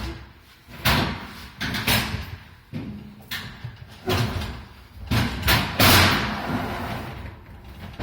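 A run of irregular clunks and knocks, about a dozen, the loudest near six seconds in: the electric range's sheet-metal covers and parts being handled and refitted during reassembly.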